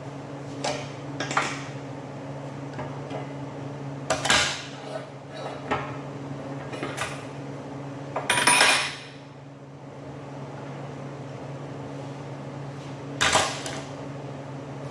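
Metal parts knocking and clanking on a steel welding bench: a handful of short sharp knocks and one longer, louder clatter about eight seconds in, over a steady hum.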